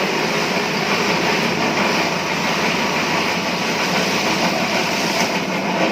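Multifunction grass chopper (the kind combined with a pellet press) running steadily and shredding elephant grass, with no screen fitted.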